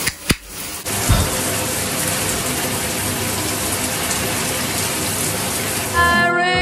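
Shower running: a steady hiss of water spray that starts about a second in, just after a single click. Music comes in near the end.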